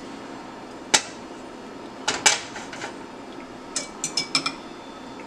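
Sharp clinks and taps of cookware and kitchen utensils: a single knock about a second in, a couple more near two seconds, and a quick run of ringing metallic clinks near four seconds.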